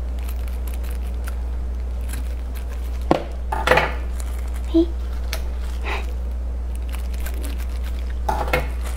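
Kitchen scissors snipping the string net around a piece of braised pork belly, and plastic-gloved fingers pulling the net off: a few scattered snips and rustles over a steady low hum.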